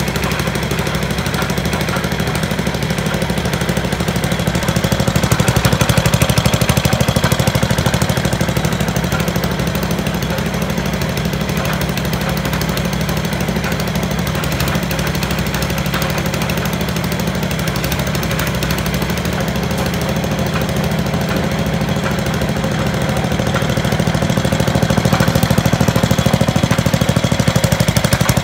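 A small single-cylinder Harbor Freight go-kart engine mounted in a 1955 Ford F100 runs steadily with a fast pulsing beat while the truck is put through first and second gear. It gets louder for a few seconds about five seconds in and again near the end.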